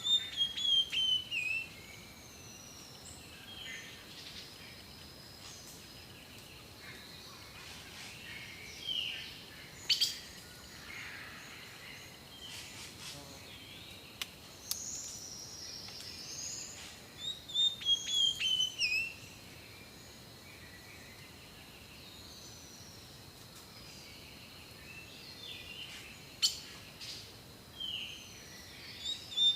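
Songbirds singing outdoors: separate chirps and whistled notes, with a loud phrase of quick notes stepping down in pitch heard three times, at the start, about halfway through and at the end. A faint steady high tone runs underneath.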